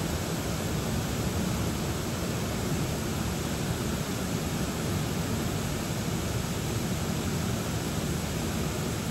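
Shallow stream running over rocks and pebbles: a steady, even rush of water.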